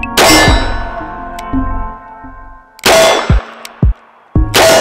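Three handgun shots at steel targets: sharp, loud reports, each followed by a brief ringing clang of the steel plate. The first comes just after the start and the others about 3 and 4.5 seconds in, over background music with a steady beat.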